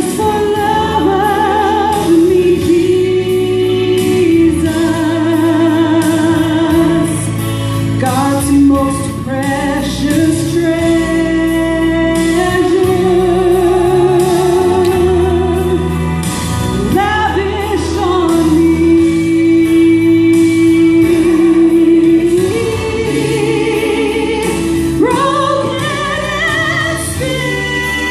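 A woman sings a Christian solo into a hand-held microphone over instrumental accompaniment. She puts vibrato on long notes and holds one note for several seconds past the middle.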